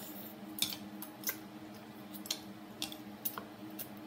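Chopsticks clicking against bowls and each other while noodles are eaten: a handful of short, sharp, irregular clicks over a steady low hum.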